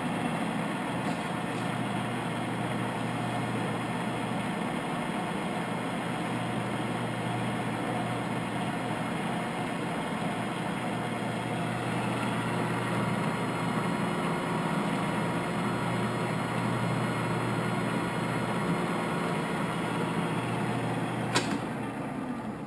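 Cincinnati Bickford Super Service geared-head drill press running steadily at 188 rpm with its power down feed engaged: an even hum from the motor and gearbox. About a second before the end, a sharp click, and the running sound drops away.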